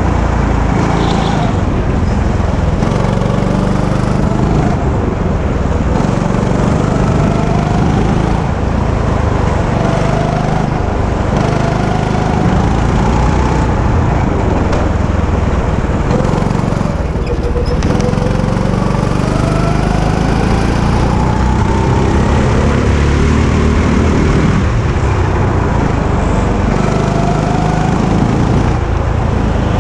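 Go-kart's small petrol engine running hard, heard up close, its pitch rising and falling over and over as the throttle is worked through the corners.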